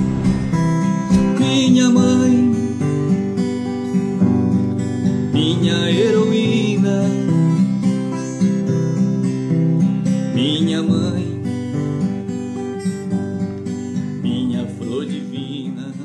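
Acoustic guitar music strumming an instrumental outro with no singing, gradually getting quieter toward the end as it fades out.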